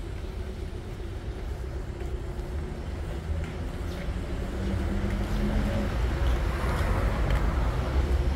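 Street traffic: a motor vehicle's engine running as a low rumble that grows louder over the second half.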